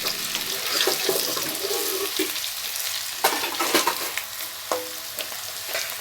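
Food sizzling in hot oil in a kadai (Indian wok), with a few sharp clanks of a utensil against the pan, loudest a little after three seconds in.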